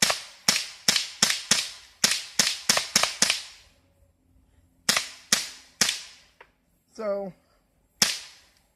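Colt Defender CO2 BB pistol firing: a quick string of about ten sharp cracks, a pause, three more, then a single shot near the end.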